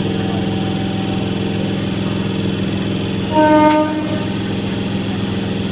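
Indian Railways EMU electric train running with a steady, rhythmically pulsing drone. About halfway through, a train horn gives one short blast of about half a second, the loudest sound here.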